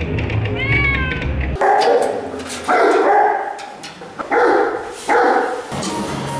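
Caged animals crying out: four loud, harsh calls, each under a second long, over background music. A short rising whine comes just before the first of them.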